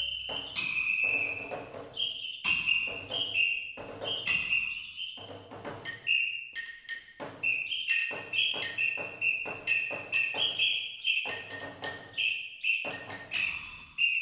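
Live percussion playing: a high whistle sounding in short notes that jump back and forth between two pitches, over quick, sharp percussion strokes.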